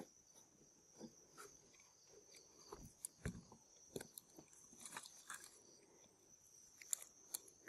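Faint steady high-pitched trill of night insects such as crickets, with scattered small clicks and crackles, about a dozen, spread through.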